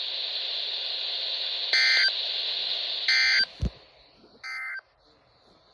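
Emergency Alert System end-of-message tones: three short bursts of digital data warble, each about a third of a second long and spaced about a second and a half apart, over steady radio hiss. The hiss cuts off with a low thump after the second burst, and the third burst is quieter.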